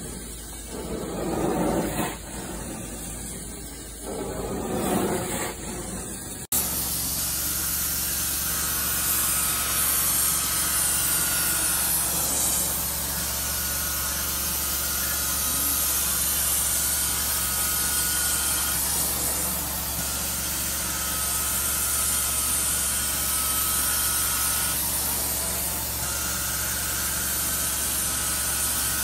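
Carpet cleaning machine at work. For the first six seconds or so a carpet cleaner head is pushed and pulled over carpet with an uneven whoosh; then, after a sudden change, a steam-cleaning extraction wand's suction runs with a steady hiss over a low hum, and a high whistle comes and goes every few seconds.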